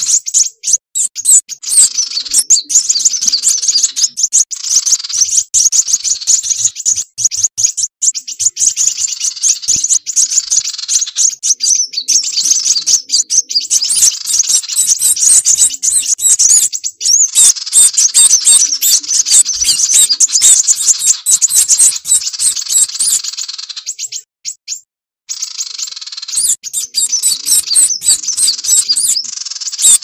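Bird-lure recording of sunbird calls combined with flowerpecker calls: dense, rapid, high-pitched chipping and trilling, with a short break about three quarters of the way through. It is a trapping lure meant to draw in sunbirds.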